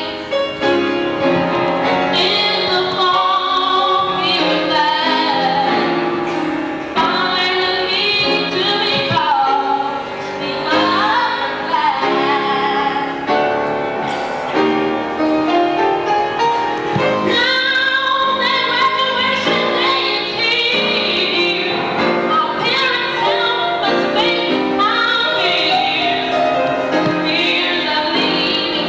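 A young woman singing a solo into a handheld microphone, amplified through the hall's sound system, with musical accompaniment held underneath her voice.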